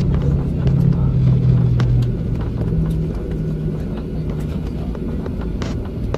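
Jet airliner cabin noise during the landing rollout: a steady low rumble from the engines and the wheels on the runway, with ground spoilers deployed. The engine tone dies away after about two seconds and the rumble eases as the plane slows, with small rattles in the cabin.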